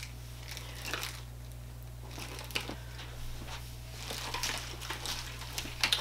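Soft rustling of clothing and a small handbag being handled, with a few light clicks, over a steady low hum.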